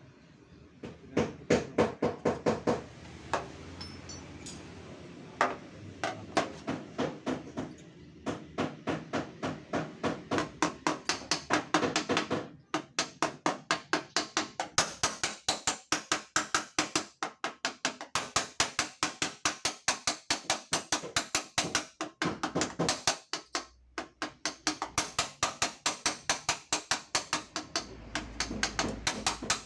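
Hammer tapping steadily on the dented metal of a Toyota Agya's front fender, several quick blows a second, to beat the dent back out. It breaks off briefly about twelve seconds in and again about twenty-three seconds in.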